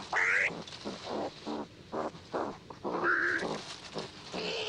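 Two male striped skunks fighting, calling out in quick succession: a shrill squeal at the start and another about three seconds in, with a string of short, lower calls between and after.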